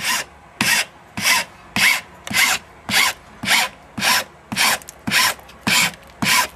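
Hand file rasping along the edge of a newly glued Wurlitzer piano keycap to smooth it, in steady back-and-forth strokes just under two a second.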